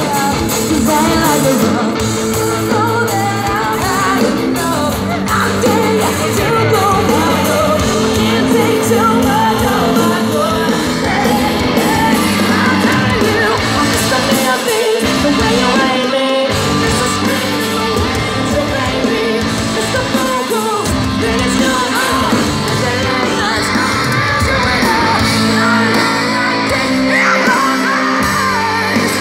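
A rock band playing live, with drums, bass guitar and a lead singer, heard from the audience.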